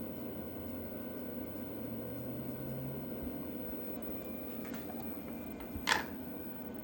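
Steady low rushing hum of a Stoke Voltaics Joulle electric kettle heating water that is warming toward the boil. A single short sharp click comes about six seconds in.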